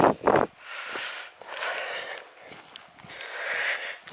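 A walker's breathing close to the microphone: one loud breath at the start, then softer breaths swelling and fading about once a second.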